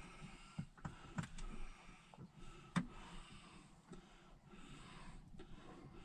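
Faint, scattered small clicks and light knocks of hand work on small hardware, with a sharper click about three seconds in, as a steering-wheel spinner knob is fitted and tightened.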